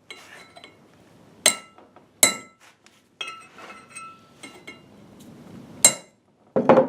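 Hammer striking a center punch to peen small raised craters into a metal rotor so a seal will grip with a tighter press fit. There are three sharp ringing metal strikes, with a heavier knock near the end.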